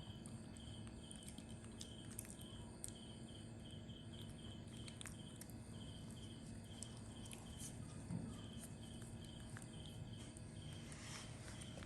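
Faint, steady chirping of an insect, a high pulse repeating about twice a second, with scattered light clicks.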